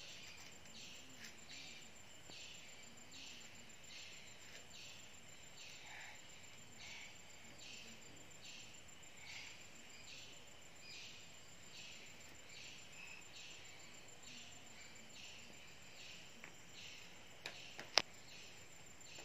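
Faint high chirping repeated evenly about one and a half times a second, over quiet outdoor background hiss. A single sharp click sounds near the end.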